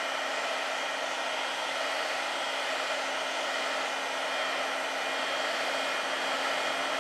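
Heat gun blowing hot air steadily over a phone screen to soften its adhesive, with a faint steady hum beneath the rush of air.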